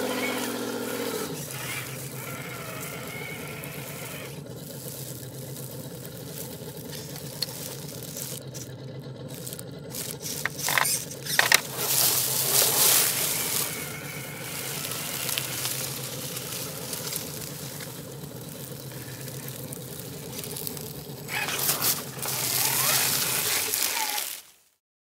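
Electric motor and gears of a Roc Hobby Willys jeep RC crawler whining steadily as it creeps down a rock ledge. There are louder scraping bursts from about ten seconds in and again near the end. The sound cuts off just before the end.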